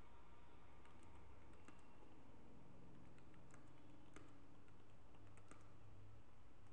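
Computer keyboard keys being typed in short irregular runs: faint clicks over a steady low hum.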